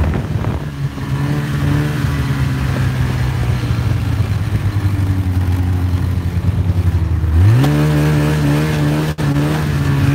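Snowmobile engine running at a steady speed while under way. About three quarters of the way through it revs up quickly and then holds at the higher pitch.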